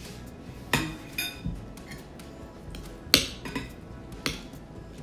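Metal spoon and fork clinking against ceramic bowls, about six sharp clinks, some ringing briefly, the loudest a little after three seconds in, over quiet background music.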